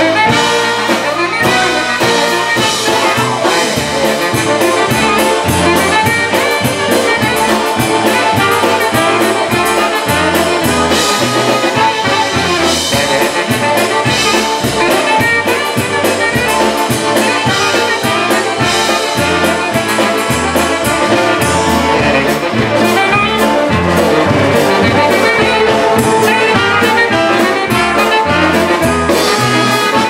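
Live polka band playing: two trumpets and a tenor saxophone carry the tune over accordion and drums, with a steady bass pulse underneath.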